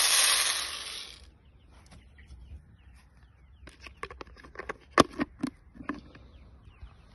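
Chicken feed poured into a red plastic poultry feeder: a hissing rush of grain that tails off after about a second. Then a run of sharp plastic clicks and knocks as the feeder is handled, the loudest about five seconds in.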